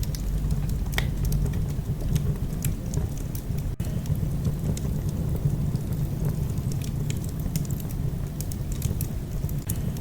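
Wood fire burning in a fireplace: irregular crackles and small pops from the burning logs over a steady low rumble of the flames.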